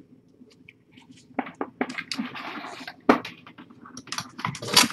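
A string of sharp clicks and knocks, with a brief rustle a little before halfway and a louder cluster of knocks near the end, as objects are handled close to the microphone.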